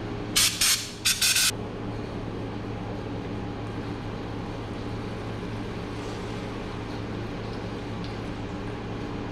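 Two short hissing blasts, each about half a second long, close together near the start, over a steady hum in the background.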